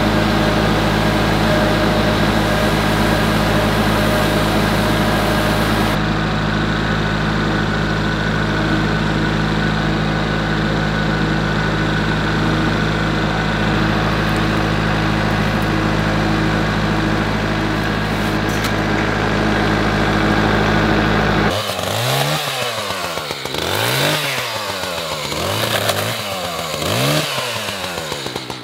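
Tractor engine running steadily under a front-loader grapple. About three-quarters of the way in, the sound cuts to an Echo chainsaw being revved up and down about five times.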